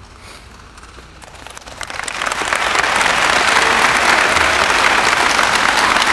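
Audience applauding, starting about a second and a half in, swelling quickly and then holding steady.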